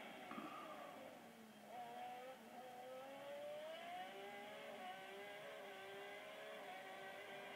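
Racing car's engine, heard from onboard, climbing in pitch as it accelerates twice in quick succession, then running at a steadier pitch. The sound is faint and thin.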